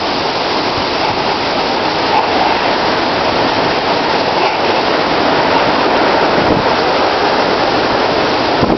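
Hurricane eyewall wind and heavy driving rain, a steady loud roar of wind-blown rain.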